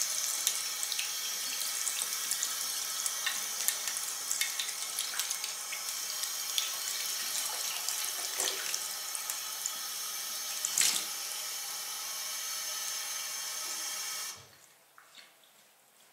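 Bathroom tap running into a ceramic sink as soapy hands are rinsed under the stream, with small splashes throughout. The water is shut off abruptly about three-quarters of the way through, leaving a few faint drips from the wet hands.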